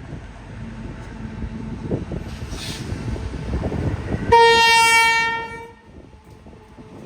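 Freight train approaching with a growing rumble, then its horn sounds one long single-note blast about four seconds in, lasting about a second and a half.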